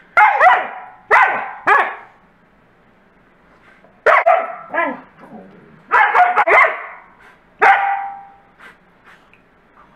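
Wolfdogs play-barking and yowling at each other: loud pitched calls that bend up and down in pitch, in bunches of two or three with short quiet gaps between.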